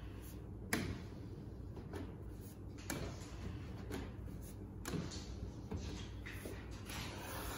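Cloth wiping and rubbing over wet car window glass, with a few sharp knocks and taps, the loudest just under a second in, over a steady low hum.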